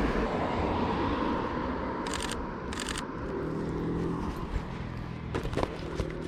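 Camera shutter firing in two quick bursts of rapid clicks about two seconds in, over steady outdoor background noise. From about halfway through, a vehicle engine hums, with a few sharp clicks near the end.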